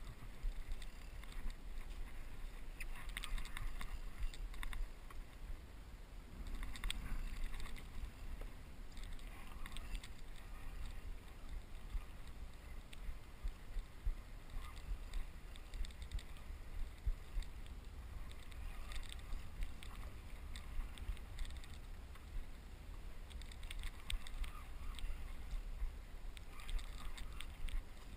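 Water splashing and lapping against a kayak's hull at irregular moments, over a steady low rumble.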